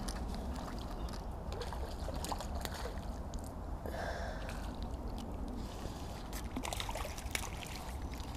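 Small splashes and clicks of water as a hooked F1 carp is played on a light float rod, over a steady low rumble.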